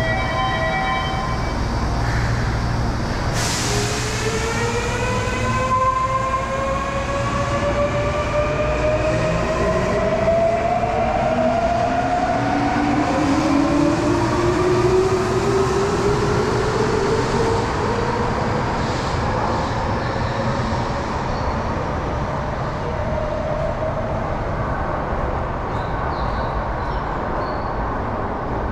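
Toei Mita Line electric train pulling out of the underground platform. The whine of its traction motors climbs in pitch in several stepped glides as it accelerates away, over a steady low rumble. A short hiss comes about three and a half seconds in.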